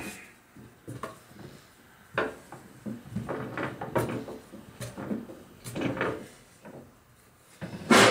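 Irregular knocks and clunks of metal workshop tools and parts being handled, about half a dozen spread out, with the loudest clunk near the end, as a pipe clamp holding a valve is moved and set up in a vise.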